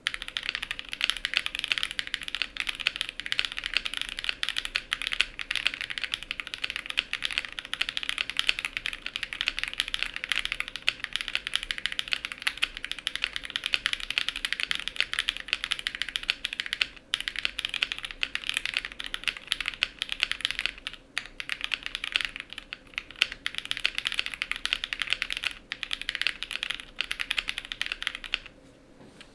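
Continuous fast typing on a custom mechanical keyboard: relubed Kailh Ashes switches in a polycarbonate plate with full foam, under GMK keycaps, giving a rapid stream of soft, muted keystrokes with a few brief pauses.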